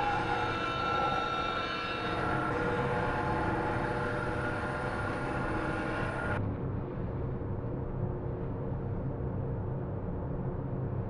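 Gas-engine saw running steadily at high revs while milling a poplar log into boards; a little past halfway the sound suddenly turns duller.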